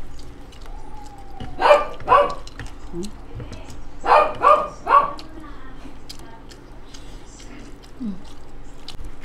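A dog barking: two barks, then three more a couple of seconds later.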